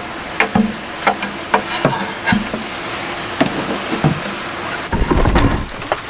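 A small wooden folding table being handled and moved, with a string of sharp wooden knocks and clatters. Near the end comes dense low thumping and rumbling close to the microphone.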